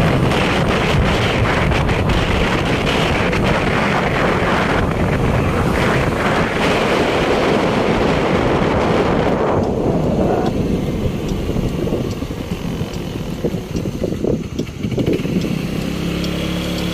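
Wind buffeting the microphone over the road noise of a moving car: a loud, even rush that drops to a quieter, lower rumble about ten seconds in.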